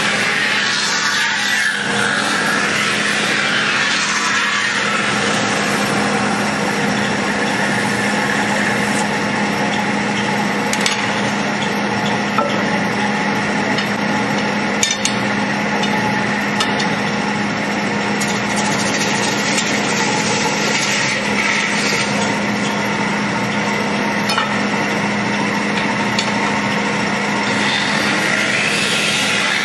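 Metal-spinning lathe running with a steady low hum while a long lever-held spinning tool rubs against the turning sheet-metal dish, a continuous hissing scrape. A few sharp clicks come through about midway.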